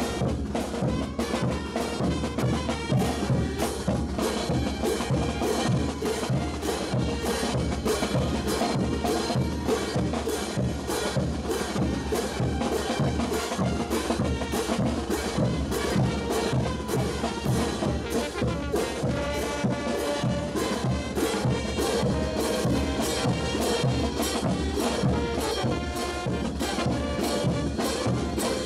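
Live brass band with drums playing a steady dance tune, the drum beating about twice a second under the horns.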